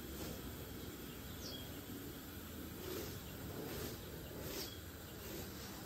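Faint outdoor background noise, an even hiss, with a single short falling bird chirp about one and a half seconds in.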